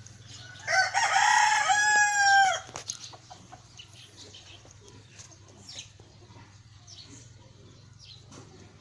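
A rooster crowing once: a single loud call about two seconds long, starting just under a second in.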